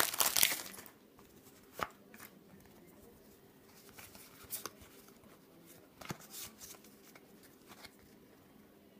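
Foil booster-pack wrapper of a Pokémon XY Evolutions pack crinkling loudly as it is torn off, for about the first second. Then a few light taps and slides of trading cards being handled.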